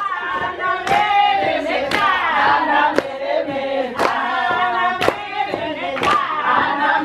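Group of women singing together, with hand claps about once a second.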